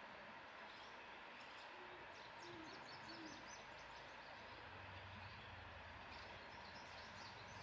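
Faint outdoor ambience: a soft steady hiss with scattered high bird chirps, and a few soft low hoots about two to three seconds in. A low hum sets in about halfway through.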